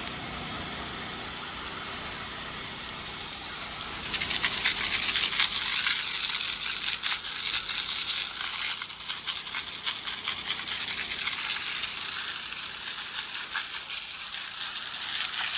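Pressure washer's water jet spraying, a steady hiss that grows louder and spattery about four seconds in as the spray hits the building's surface, then stops abruptly at the end.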